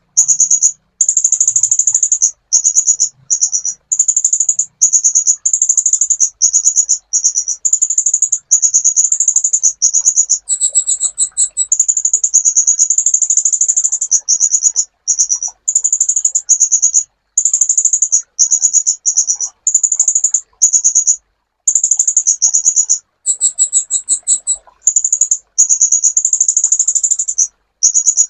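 Sunbird (kolibri ninja) singing: very high, fast buzzy trills in phrases of about one to two seconds with short breaks, twice changing to a higher, differently pulsed call, around a third of the way in and again near the end.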